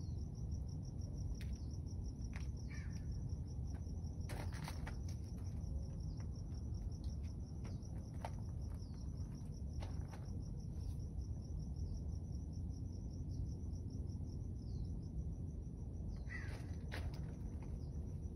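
Insects trilling steadily, a continuous fast-pulsed high buzz, over a louder low steady rumble. A few faint clicks, and a short bird call near the end.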